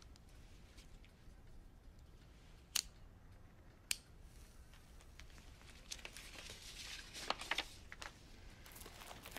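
A cigarette being lit: two sharp strikes about a second apart, then about two seconds of crackling as it catches, with a few sharper crackles near the end.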